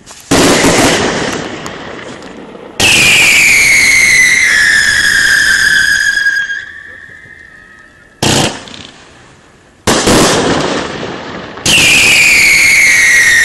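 Fireworks display: three sudden loud bangs that die away, and twice a long shrill whistle from whistling fireworks, falling slowly in pitch over three to four seconds.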